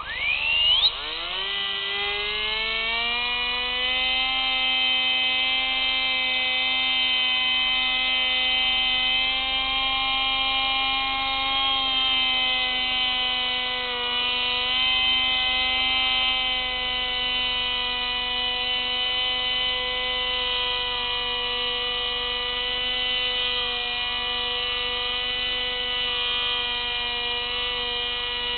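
Electric motor and propeller of an FPV model aircraft, heard through its onboard camera: the motor spins up with a quickly rising whine in the first second, then holds a steady whine with small changes in pitch in flight.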